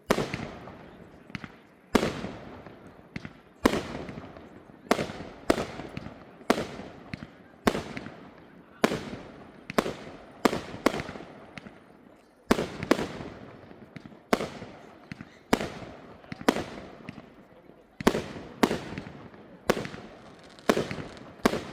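Fireworks display: sharp firework bangs in quick succession, roughly one or two a second, each trailing off in an echoing rumble.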